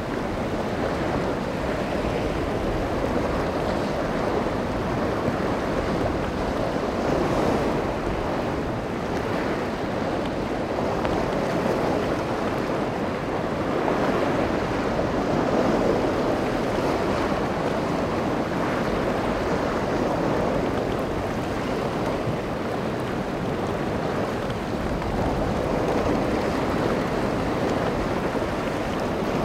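Steady rush of rough surf and wind, with wind noise on the microphone.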